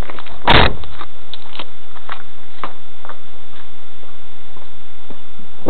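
Loud steady hiss with scattered sharp ticks and one heavy thump about half a second in, picked up by a cheap car camera's microphone while the camera is suction-mounted on a car's body beside the wheel.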